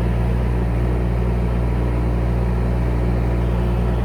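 Engine of a 2.2-tonne UHI UME22 mini excavator running at a steady speed, a low even drone with no change in pitch.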